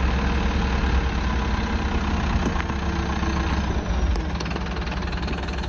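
Mercedes Vario 818 truck's diesel engine idling with a steady low hum, easing off slightly in level about four seconds in.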